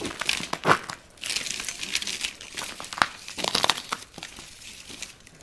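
Irregular crunching and crinkling of icy, crusted snow, coming in uneven bursts as someone walks on it.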